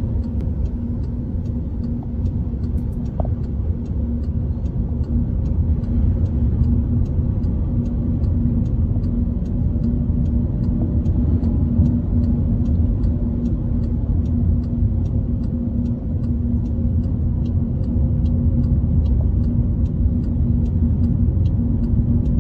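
Car cabin noise while driving: a steady low road-and-engine rumble with a constant hum. A faint regular ticking, about two ticks a second, runs underneath.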